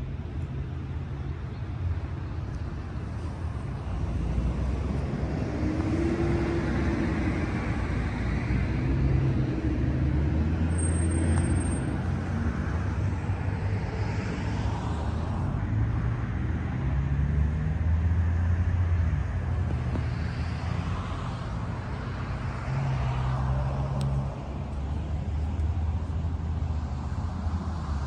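Road traffic: several cars pass by one after another, each swelling and fading, over a steady low rumble.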